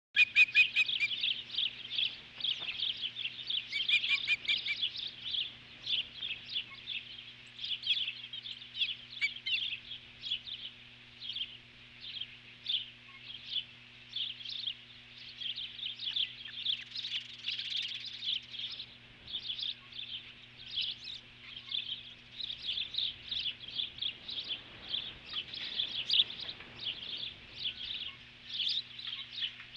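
Ospreys calling in alarm: a continuous run of rapid, high, whistled chirps, several a second, loudest in the first second. A steady low electrical hum from the nest-cam audio runs underneath.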